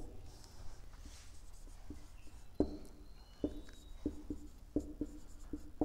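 Marker writing on a whiteboard: faint strokes, then from about two and a half seconds in a run of irregular taps as the tip meets the board, each with a slight ringing from the board.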